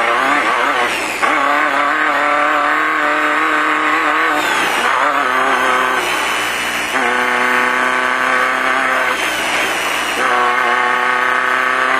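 Off-road race car engine heard from on board, running hard. The revs rise and fall several times, with stretches of steady revs in between.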